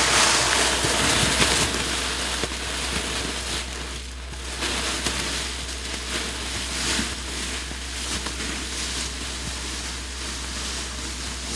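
A whitetail deer carcass dragged through dry fallen leaves, with footsteps: a rough rustling and crunching in irregular surges that fades as it moves away.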